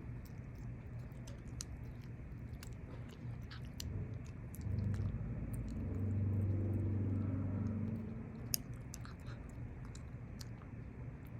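A cat chewing food, with many small crunching clicks. A low steady hum swells up in the middle and fades again.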